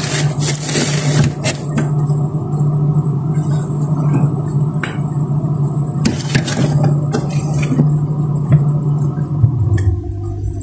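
A metal plate knocking and clattering against a refrigerator's wire shelves as it is pushed in, mostly in the first second and a half and again around six seconds, over a steady low mechanical hum that drops in pitch near the end.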